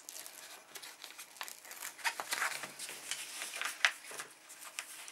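Plastic cover film and a large diamond painting canvas crinkling and crackling as they are handled and peeled apart, in irregular short crackles.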